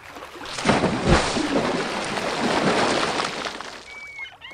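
Logo-intro sound effect: a loud rush of noise that swells about half a second in, with a deep thud about a second in, then fades out over the next few seconds. A brief whistling note sounds near the end.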